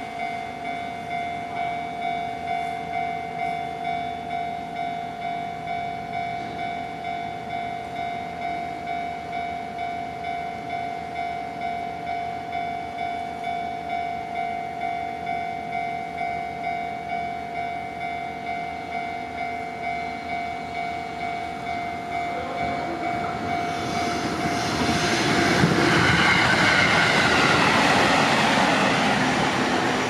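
Japanese level-crossing alarm ringing its repeated electronic 'kan-kan' bell, about two strikes a second. From about 23 seconds in, a JR Tokaido Line electric train's rumble and wheel clatter rise and grow loud as it passes the crossing.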